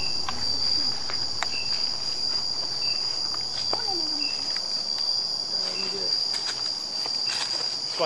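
Night-time insect chorus: a steady high-pitched drone, with a short chirp repeating about every second and a half, and a few faint clicks and rustles.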